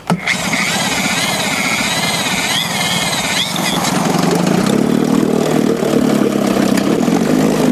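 Evinrude 3 hp two-stroke outboard motor starting and running unevenly, its pitch wavering. The owner is chasing a carburetor fault that keeps it from staying running.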